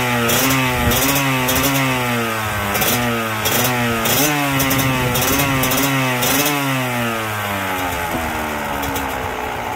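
Dirt bike engine running, revved in repeated blips of the throttle so that its pitch climbs and falls about once a second, then settling toward idle near the end.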